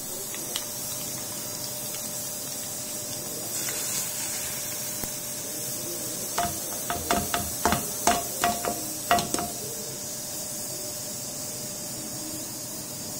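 Hot oil tempering of curry leaves, green chillies and mustard seeds, with a steady sizzling hiss. From about six seconds in, a small pan held in steel tongs clinks against the steel tin about ten times, each a short metallic ring, as the tempering is poured and tapped out over the khaman.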